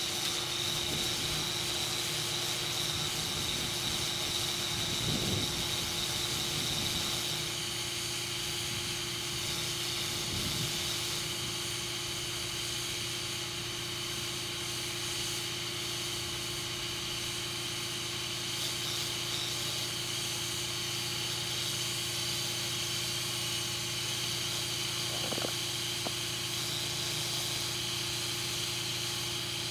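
Steady hiss of air at a large 20.8R38 tractor inner tube, over the steady hum of a running air compressor, as the tube is filled.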